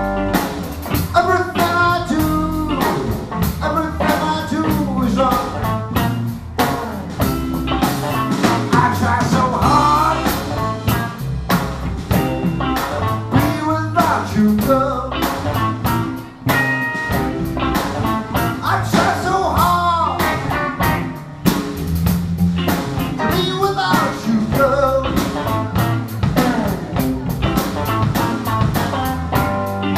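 Live blues band playing: electric guitars over a drum kit, with the lead guitar bending notes.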